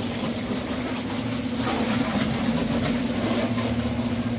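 High-pressure washer running steadily with an even hum, its spray gun jetting water onto a car with a hiss.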